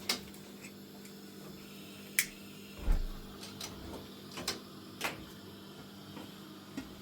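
Scattered light knocks and clicks of objects being handled, about seven at uneven intervals, with the loudest near the middle, over a steady low hum.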